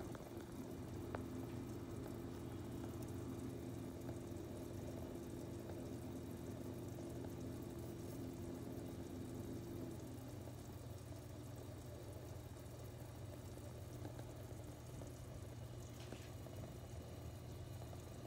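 Coconut-milk curry of snake gourd and potato bubbling at a simmer in a pot under a glass lid, faint and steady, with a low hum underneath.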